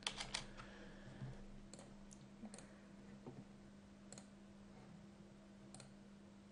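Computer mouse clicking a few times, spaced out, with a cluster of quick clicks at the start, over a faint steady electrical hum.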